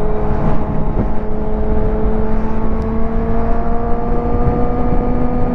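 Suzuki GSX-R 750's inline-four engine running at road speed, its pitch climbing slowly and steadily as the bike gains speed, over heavy wind rush on the rider's microphone.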